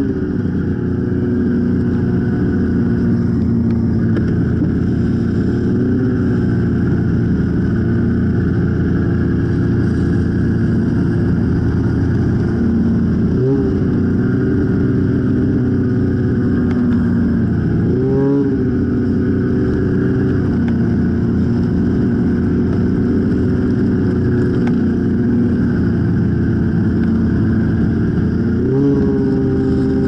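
Snowmobile engine running steadily under way, heard from on board the sled. The engine pitch rises briefly with the throttle about 13 seconds in, again about 18 seconds in, and near the end.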